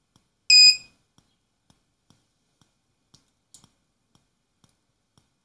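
An active buzzer on an Arduino Uno gives one short, high-pitched beep about half a second in, sounding because the potentiometer reading is above the 1000 threshold. Faint regular ticking runs underneath.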